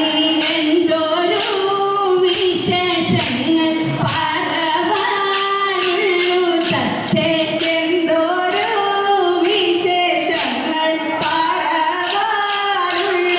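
Kolkali performance: female voices singing the dance song, with short wooden sticks struck together in time, sharp clacks recurring through the singing.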